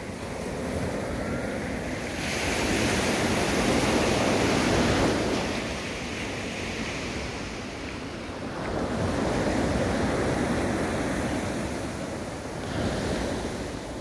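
Ocean surf breaking and washing up a sandy beach, rising and falling in slow surges as each wave comes in.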